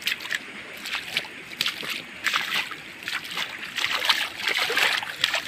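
Shallow water in a flooded rice paddy splashing and sloshing in quick, irregular splashes.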